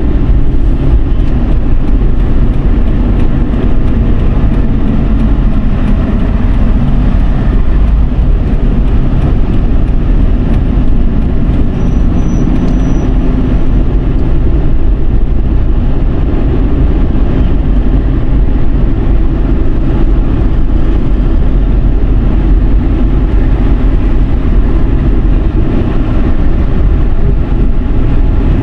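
Steady road noise of a Dodge Charger with the 3.5-litre V6 driving at speed: an even, deep rush of tyres and wind with the car's running underneath, without a break.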